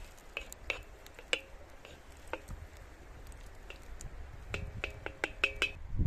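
Wooden spoon knocking against a metal wok while stirring diced fat in it, each knock with a short metallic ring: a few scattered knocks, then a quick run of about half a dozen near the end.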